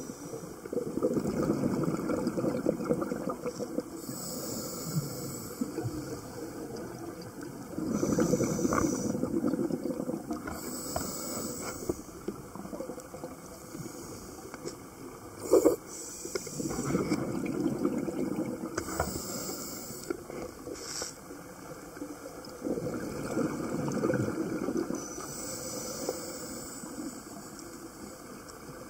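Scuba diver breathing through a regulator underwater: a hiss on each inhale and a burst of bubbling exhaust on each exhale, about four slow, even breaths. A single sharp click sounds about halfway through.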